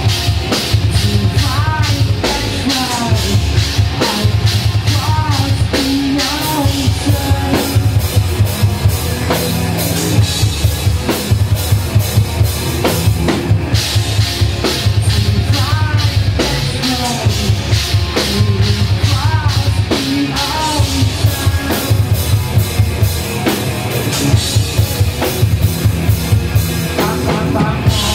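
Loud live rock music from a band playing drum kit, bass guitar and electric guitar. A busy bass drum and snare pattern drives the music, with gliding pitched lines above.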